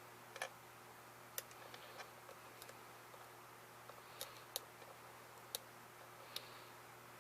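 Faint, irregular metallic clicks of a steel hook pick probing and lifting the pins inside a pin-tumbler lock cylinder under light tension, with about eight to ten short ticks spaced unevenly.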